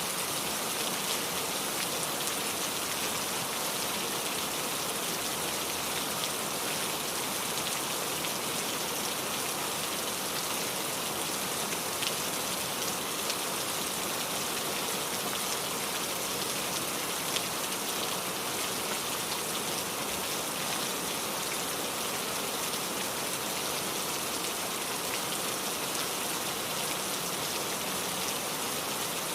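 Heavy rain falling steadily, with scattered individual drops ticking on a surface.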